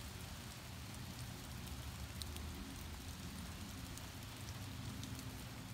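Light outdoor rain: a faint, steady hiss with a few faint drip ticks.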